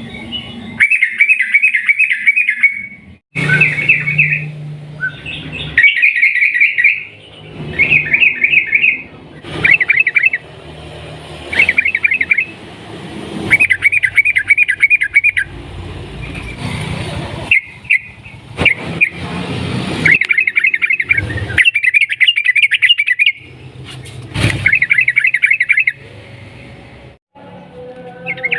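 Yellow-vented bulbul (trucukan) singing its long rapid trilling phrases over and over, each one to two seconds long with short pauses between, plus a few sharp clicks in the gaps.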